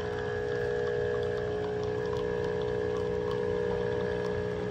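Capsule espresso machine's pump humming steadily at one pitch while it brews coffee into a glass mug.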